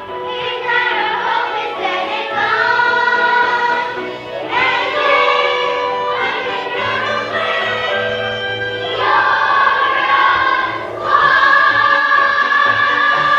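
A choir singing with music, holding long sustained chords that change every few seconds.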